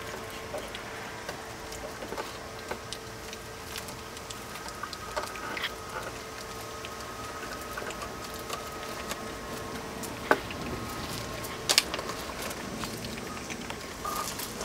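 Shiba Inu mother and nursing puppies shifting on gravel: scattered small clicks, crunches and rustles, with two sharper clicks about ten and twelve seconds in, over a faint steady hum that stops at the first of them.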